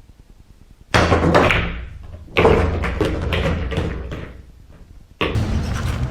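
A run of loud bangs and knocks, with sudden impacts about a second in and again about two and a half seconds in, fading away before a steady low rumble begins near the end.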